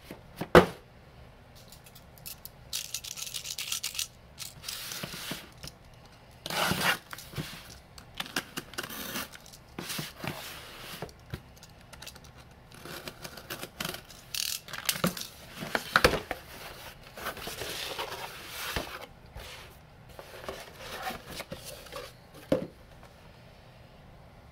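A corrugated cardboard shipping box being handled and opened: a snap-off utility knife slitting the packing tape, with cardboard scraping and tearing in irregular bursts. Sharp knocks, the loudest about half a second in and another near the end, as the box is put down and moved on the mat.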